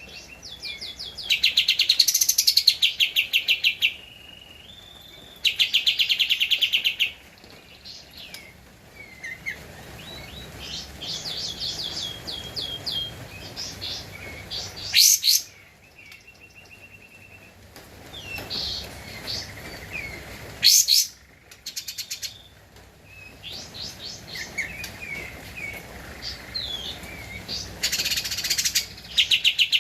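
Kapas tembak songbird singing: loud, rapid rattling trills of high notes in bursts of about a second and a half, with softer chirping phrases and a few short held whistles between them.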